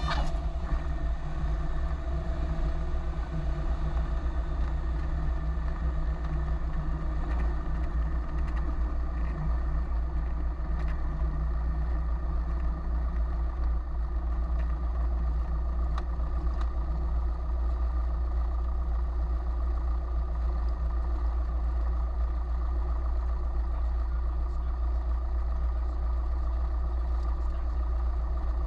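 Cessna 172's piston engine running at low taxi power with the propeller turning, a steady drone whose pitch eases down over the first few seconds and then holds.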